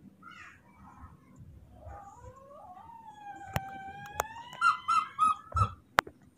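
Newborn baby monkey crying: wavering calls that rise into one long coo about three seconds in, then a quick run of about five short high squeaks. A few sharp clicks sound alongside.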